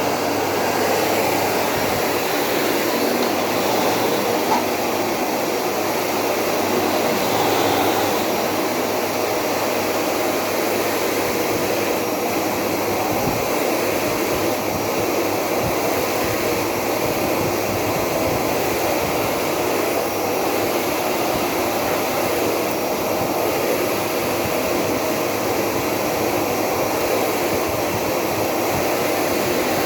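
Philips 7000 series 470-watt cyclonic vacuum cleaner running steadily: a continuous rush of air with a faint high motor whine.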